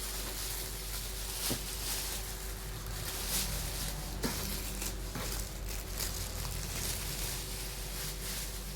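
Handling noise: rustling with a few light clicks or knocks, over a steady background hum and hiss.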